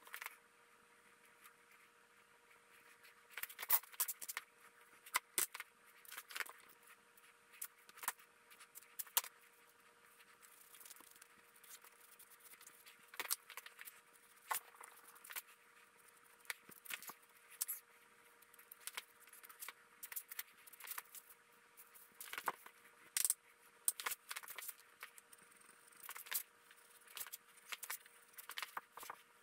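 Scattered light clicks, taps and knocks of hand tools and hardwood pieces being handled on a workbench, with one-handed bar clamps being set on the board, over a faint steady hum.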